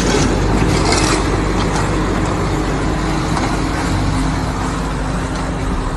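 Steady rumble of a heavy engine running, with a low hum.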